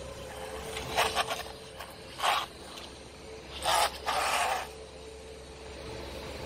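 A small home-built RC car powered by four FPV drone brushless motors, driven in short spurts over paving stones. Four or five brief bursts of whirring and scraping, the loudest two close together near the middle.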